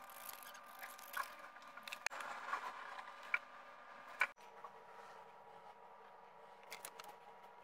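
Faint rustling of construction paper being cut with scissors and handled on a wooden table, with a few sharp clicks and taps. Quieter after a sudden break about four seconds in, with only light handling ticks near the end.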